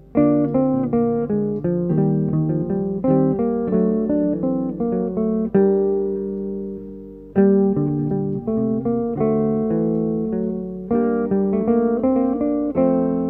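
Three overdubbed parts on a Gibson ES-175 archtop electric guitar playing a jazz trio in a five-against-three polyrhythm, as interlocking picked single-note lines. About five and a half seconds in, a chord rings out and fades. The lines pick up again about two seconds later.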